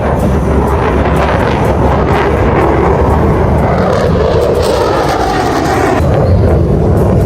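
Aircraft engine noise: a loud, steady rush.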